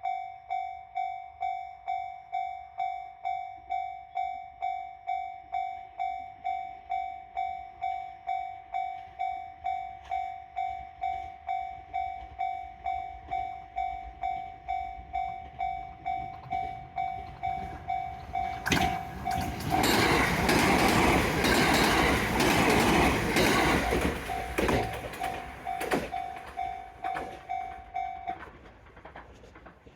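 Japanese railroad crossing alarm ringing its steady 'kan-kan', about two strikes a second. About 19 seconds in, a train passes over the crossing, the loudest sound, with clacks of wheels over rail joints; the alarm stops a couple of seconds before the end.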